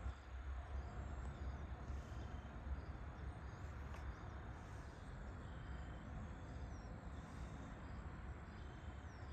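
Faint crickets chirping in a steady repeating pattern over a low, steady rumble.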